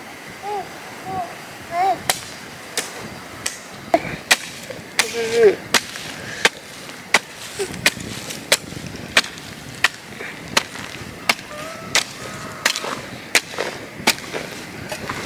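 A tool striking repeatedly in an even rhythm, about three sharp strikes every two seconds, with a few short chirping calls among them near the start.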